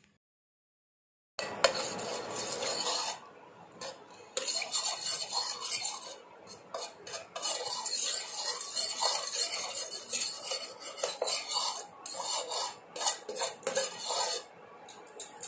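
Steel spoon scraping and clinking against a frying pan as spoonfuls of ghee are spread across it. It starts about a second and a half in, with many quick clicks and scrapes.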